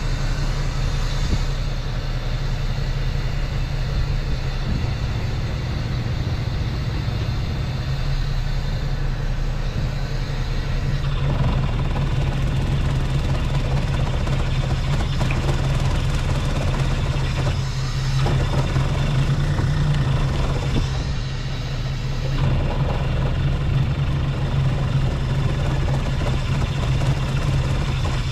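A small fishing boat's engine running steadily, a low even drone with a hiss of water and gear over it.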